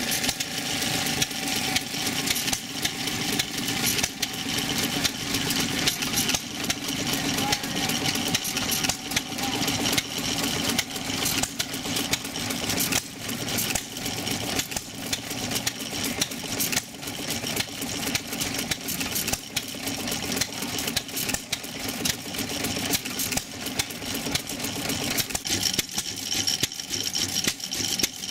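Antique single-cylinder hit-and-miss stationary gas engines running, with sharp exhaust pops and mechanical clatter in an uneven rhythm.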